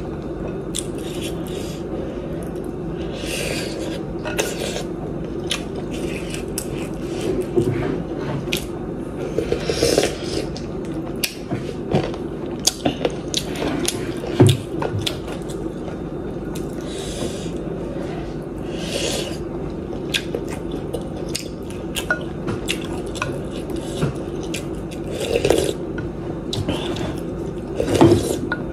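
Eating sounds: a wooden spoon scraping and clinking against a glass bowl of noodle soup, with short slurps and chewing scattered throughout.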